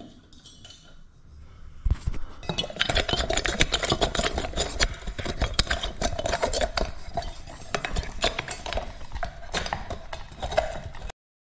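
Rapid clicking, light clinking and rubbing from hands handling things right at the microphone, starting about two seconds in and cutting off abruptly near the end.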